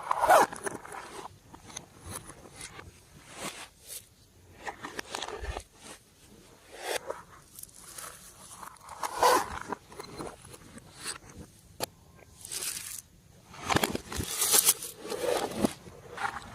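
Hands squishing, stretching and pressing slime, giving irregular sticky crackles and scrapes in uneven bursts, with the loudest squishes near the start, about halfway through, and near the end.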